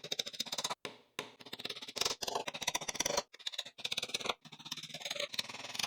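A hammer tapping small nails into thin wooden strips: rapid, light knocks on wood, broken by a few short pauses.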